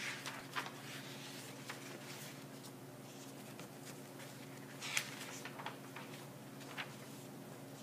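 Pages of a large picture book rustling as they are turned and handled: a few short, crisp rustles, the loudest about five seconds in, over a steady low hum.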